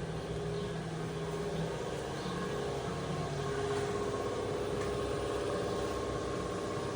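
Engine idling steadily, an even hum with no change in speed.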